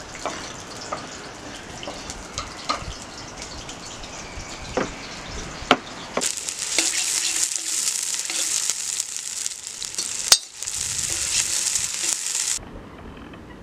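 Sliced onions sizzling loudly in hot oil in a cast-iron kazan as they are stirred with a metal skimmer, starting about six seconds in and stopping shortly before the end. Before that, a few scattered sharp knocks.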